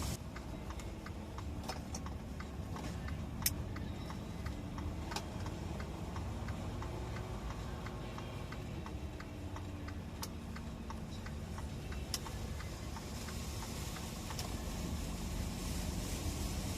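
Car running with a steady low rumble, over a regular ticking of about three ticks a second and a few sharper clicks.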